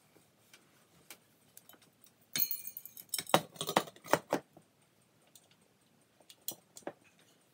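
Ceiling fan's housing cover clinking and clanking against the fan motor as it is fitted up over it, with a short metallic ring at the first knock; a few lighter clicks follow.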